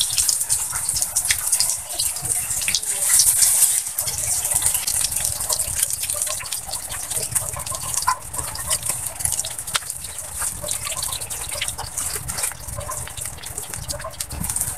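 Banana-pith patties sizzling as they fry in oil in a wok: a steady hiss with scattered pops and crackles.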